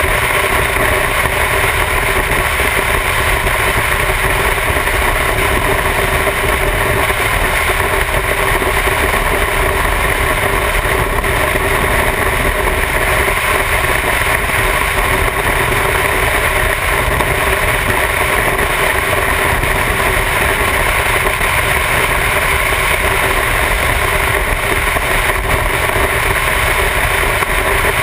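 Motorcycle cruising at a steady highway speed, heard from the rider's position: a constant engine drone under heavy wind noise on the microphone, with no change in speed.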